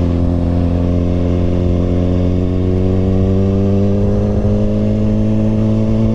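Kawasaki ZX-6R inline-four sport-bike engine pulling along at low road speed. Its note holds steady at first, then rises slowly from about a third of the way in as the bike gently accelerates in gear.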